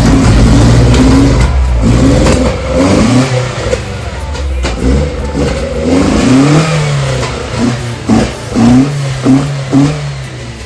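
Nissan Hardbody pickup's engine, running just after its first start, revved repeatedly in short throttle blips, with several quick sharp blips near the end.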